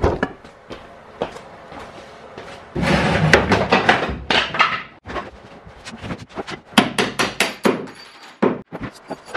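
Hammer blows knocking apart an epoxied plywood daggerboard trunk in a boat hull: scattered sharp knocks, a dense burst of rapid clattering about three seconds in, then a quick run of hard strikes with a slight metallic ring.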